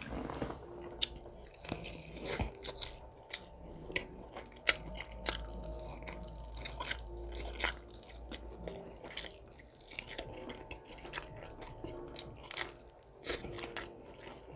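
A person biting into and chewing an air-fried chicken drumstick: many short, sharp, irregular clicks and crunching mouth noises.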